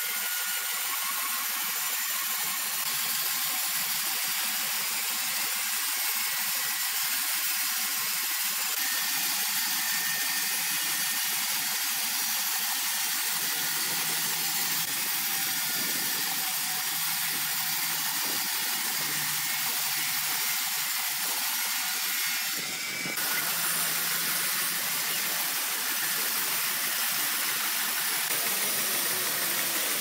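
Horizontal band sawmill running, its blade sawing lengthwise through a large squared timber: a steady high hiss over the machine's running. The sound drops briefly and changes about two-thirds of the way through.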